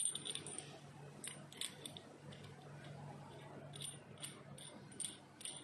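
Scattered light metallic clicks and ticks as a threaded fitting is turned by hand at the end of a Cricket PCP air rifle's air tube, the strongest click at the very start. A faint steady low hum runs underneath.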